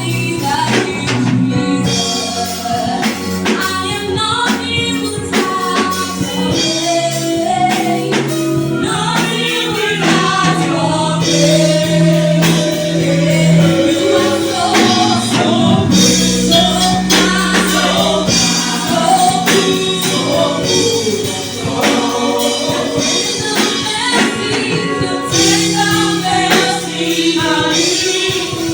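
A choir singing a gospel worship song, with band accompaniment of sustained bass notes and percussion keeping a steady beat.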